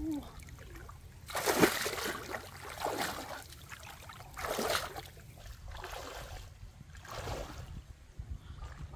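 River water sloshing and splashing in bursts as a person wades through a shallow, muddy stream, one splash every second or two. The loudest splash comes about one and a half seconds in.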